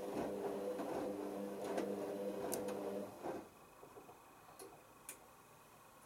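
Hoover Optima OPH714D washing machine's drum motor humming as it turns the drum in the main wash, with irregular clicks from the tumbling load. About three seconds in the motor stops and the drum comes to rest, leaving a faint steady high tone and a couple of soft clicks.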